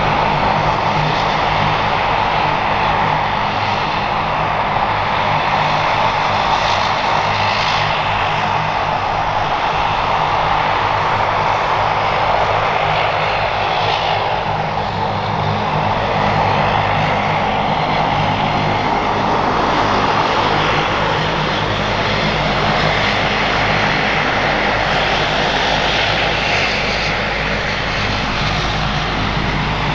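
Twin turboprop engines of a DHC-8 Dash 8 running at taxi power as it taxies past: a steady engine whine over a low propeller hum.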